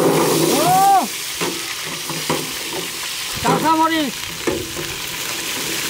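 Chopped onions hitting hot oil in a large flat steel pan, sizzling loudly at first and then settling to a steady sizzle as they are stirred with a long-handled ladle, with a few light scrapes. Two short pitched sounds rise and fall over it, about half a second and three and a half seconds in.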